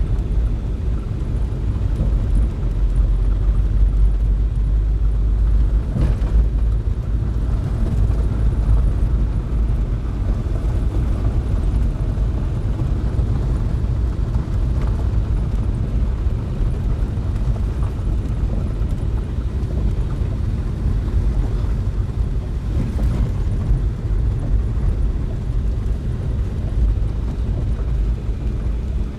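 A vehicle driving along, its engine and tyres making a steady low rumble heard from inside the cabin.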